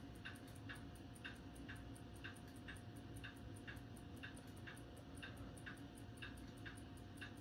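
Clock ticking steadily and faintly, about two ticks a second, over a faint steady hum.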